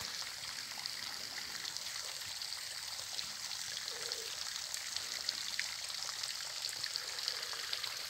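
Low flow of water at a nearly dry waterfall and its little brook: a steady, soft rushing hiss with faint droplet ticks.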